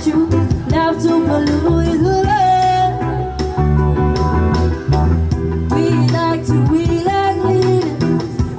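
Street performers singing a melody over guitar and a bass line.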